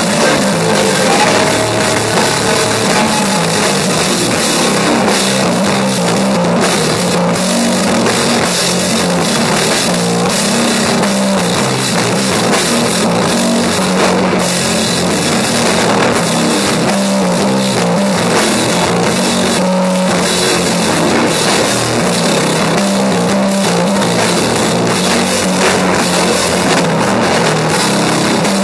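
Stoner doom band playing live: heavy electric guitar over a drum kit, with frequent drum and cymbal hits. The music is loud and dense throughout.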